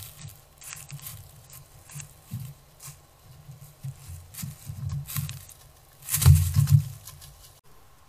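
White-tailed deer stepping through dry leaf litter close to the microphone: irregular hoof thumps and leaf crackles, with a louder, closer burst of thumping and rustling about six seconds in. The sound cuts off abruptly just before the end.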